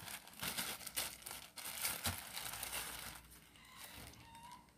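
Plastic courier mailer pouch crinkling and rustling as it is handled, busiest over the first three seconds and quieter after.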